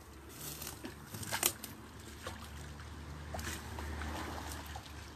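Water splashing and sloshing as a large mirror carp is brought into a landing net and thrashes at the surface, with a sharp splash about a second and a half in.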